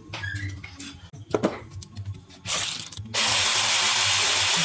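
Scattered sharp metallic clicks from tools being worked, then about two and a half seconds in a loud, steady hiss starts, breaks off briefly and carries on.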